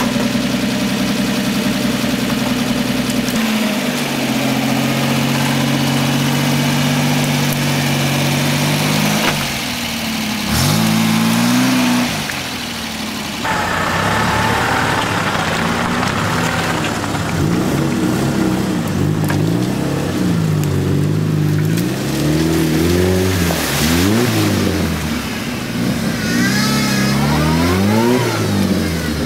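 GAZ-69's engine running steadily, dropping to a lower pitch early on. After a short break it revs up and down over and over, each rise and fall taking about a second or two.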